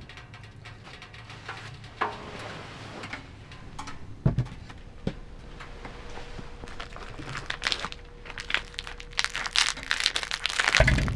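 Crinkling and rustling of something being handled close by, with scattered clicks, a knock about four seconds in, and busier crinkling near the end.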